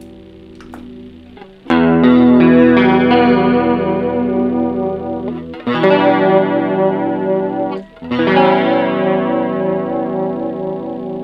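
Electric guitar played through a chorus pedal: a chord fades out, then three new chords are strummed a few seconds apart and each is left to ring. The sustained notes waver slowly with the chorus modulation.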